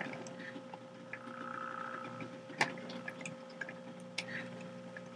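HO scale model train, a Union Pacific 4449 4-8-4 steam locomotive model and a GP40-2 diesel model, backing slowly along the track: a faint steady electrical hum with scattered small clicks from the wheels on the rails, and one sharper click a little past halfway.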